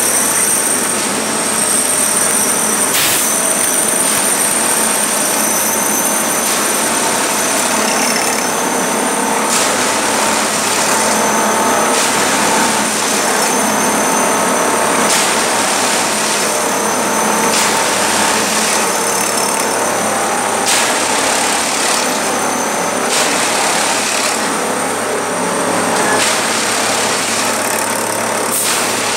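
Plasser track tamping machine running close up: a steady loud mechanical noise with a high whine, broken by short knocks every few seconds.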